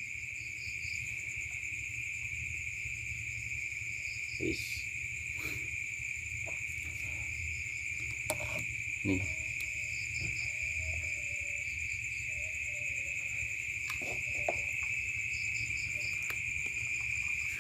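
Insects chirping in a steady, continuous high trill over a low hum, with a few faint knocks.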